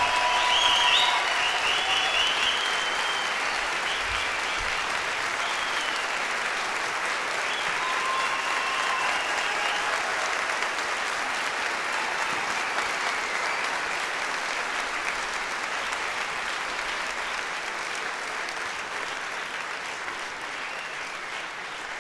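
Audience applauding steadily after a folk string band's final chord, with a few short whistles or calls in the first seconds; the applause slowly dies down.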